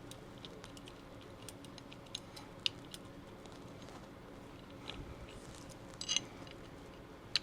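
Scattered small clicks and ticks of metal gun parts and a small tool being handled while a pistol front sight is fitted and screwed down, over a faint steady room hum.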